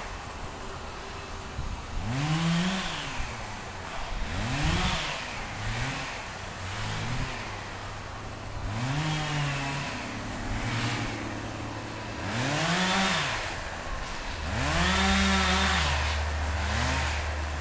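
Chainsaw idling and revved repeatedly, the engine note rising and falling back to idle in about eight short bursts.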